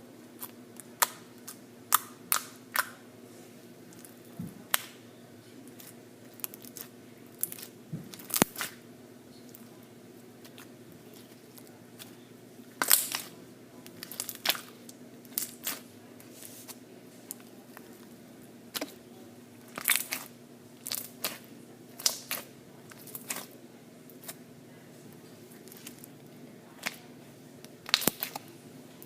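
Slime being squeezed and stretched, giving irregular sharp pops and crackles, some in quick clusters, over a faint steady hum.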